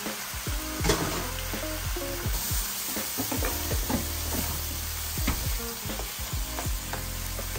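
Wine sizzling as it hits a hot sofrito of onions and tomato sauce in a nonstick electric skillet, deglazing the pan. A plastic spatula scrapes and stirs across the pan bottom in many quick strokes.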